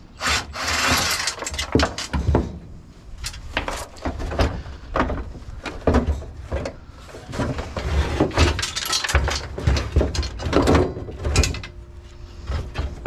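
Hand tools working on a table saw's fasteners: irregular metal clicks, rattles and scrapes, with a longer scrape about a second in, as a stripped screw still holding the part is worked at.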